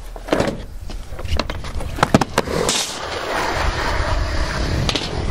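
Skateboard: a few sharp clacks and knocks of the board in the first half, then about halfway through the wheels start rolling steadily over smooth concrete.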